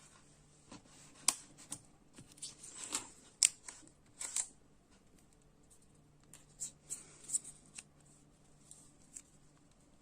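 Phone box and packaging being handled: scattered clicks, taps and short rustles, with the sharpest clicks about a second and three and a half seconds in.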